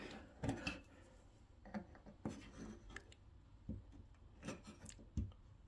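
White plastic trim inserts being pushed by hand onto black metal radiator wall brackets: scattered light clicks and scrapes of plastic rubbing on metal, with a dull knock about five seconds in.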